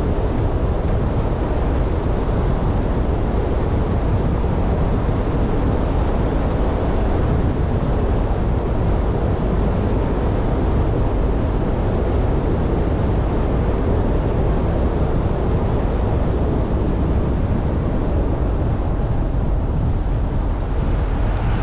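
Steady wind noise on the microphone mixed with road noise from a vehicle travelling along a paved road, an even low rush with no changes.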